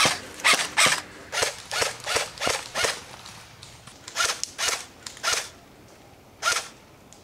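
Airsoft gun firing single shots in quick succession: a run of about eight shots roughly two to three a second, a short pause, four more, then one last shot near the end.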